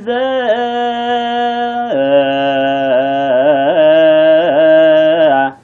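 A man's voice chanting Orthodox Tewahedo zema in Ge'ez, holding long drawn-out notes with wavering melismatic ornaments. About two seconds in, the line steps down to a lower note, and the voice breaks off just before the end.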